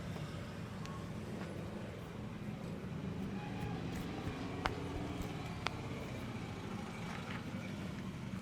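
Steady rumble of street traffic, with two sharp clicks about a second apart near the middle.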